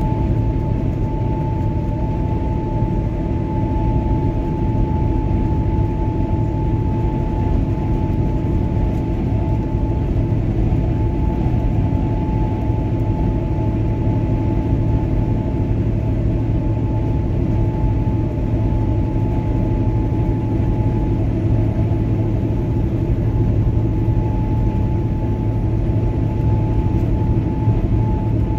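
Steady running noise of a car driving along a paved road: low engine and tyre rumble with a thin, steady high whine over it.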